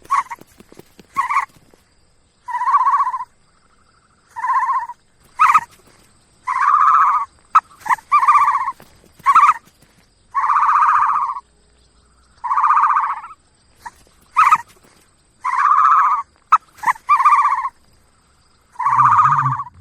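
Ostrich calls: a series of short hooting calls, each up to about a second long, repeated every one to two seconds, with sharp clicks between them. A deeper call joins near the end.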